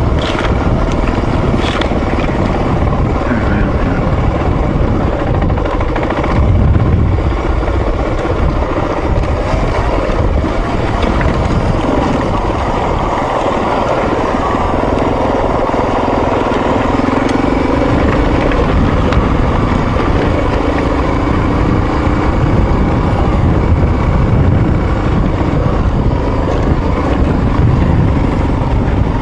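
Off-road motorcycle engine running under way on a dirt trail, its note rising and falling with the throttle, with wind rush in the low end.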